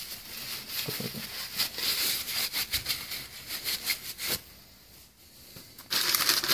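Paper towel rubbing and scrubbing inside an AK-pattern steel rifle receiver, a run of scratchy, crinkling wipes that wipe out old grime and solvent residue. The rubbing stops about four and a half seconds in, then a short burst of wiping comes near the end.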